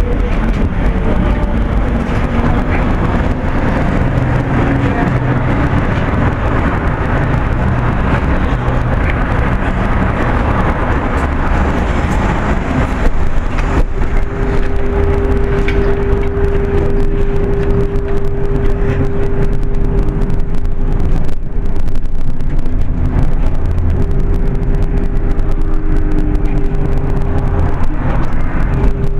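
Steady low rumble of a moving road vehicle. A steady mid-pitched whine joins about halfway through, drops out for a few seconds, then returns near the end.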